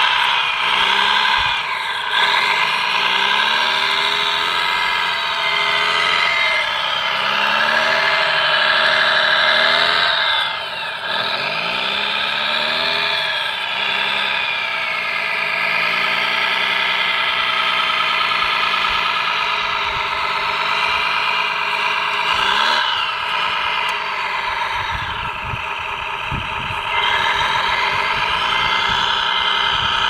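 Radio-controlled model Caterpillar D9 bulldozer driving on crushed stone: a steady mechanical drive whine whose pitch rises and falls as it moves and pushes the gravel. Rough knocking from the tracks and stones comes in briefly a little before the end.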